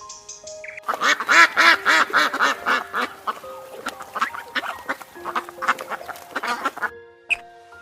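A rapid run of short animal calls, several a second, from about one second in until near the end, over background music with held notes.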